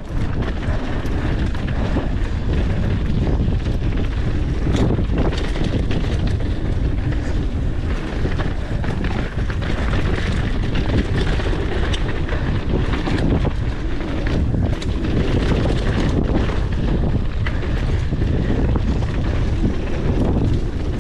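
Wind rushing over the microphone of a camera on a mountain biker riding fast downhill on a dirt trail, with tyre noise and scattered knocks and rattles from the bike over bumps.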